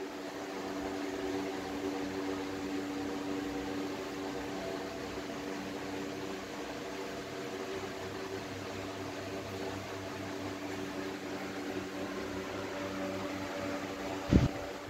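A steady machine hum made of several fixed tones, like an electric fan or other motor-driven appliance running. A brief knock sounds just before the end.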